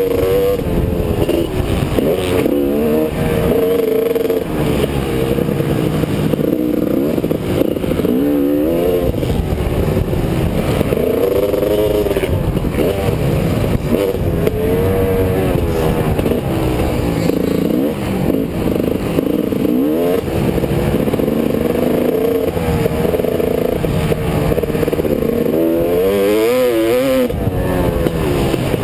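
Motocross dirt bike engine heard up close from a bike-mounted camera, revving hard and falling back again and again as the rider opens and closes the throttle and shifts gears around the track.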